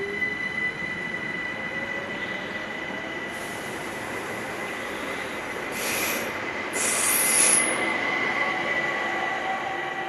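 ÖBB class 4124 Talent electric multiple unit pulling out and accelerating away: a slowly rising electric motor whine over the rumble of wheels on rail, with a steady high whine. Two short spells of high hiss or squeal about six and seven seconds in are the loudest part, then the sound fades as the train leaves.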